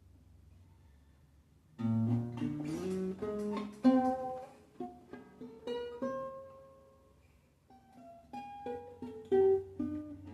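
A plucked string instrument playing single picked notes, starting about two seconds in with a short run of rising notes and pausing briefly near the end before carrying on.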